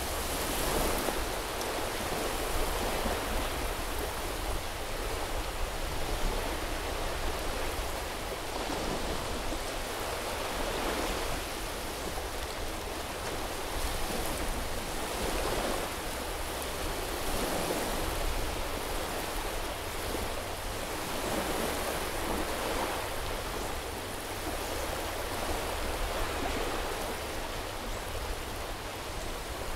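Sea waves washing onto the shore in a steady rush, swelling softly every few seconds.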